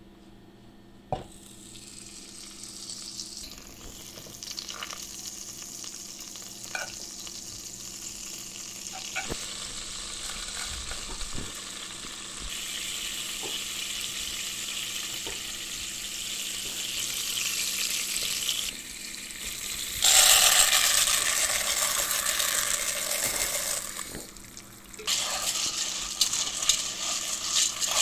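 Butter sizzling in a hot nonstick pot, the hiss building steadily as it melts and foams. About twenty seconds in the sizzle turns suddenly much louder, and near the end popcorn kernels sizzle in the butter while a whisk stirs them with light clicks.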